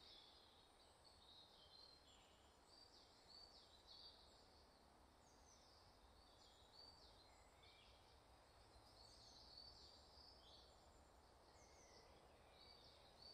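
Faint dawn chorus of several woodland songbirds: many short high chirps and trills overlapping throughout, over faint steady background noise.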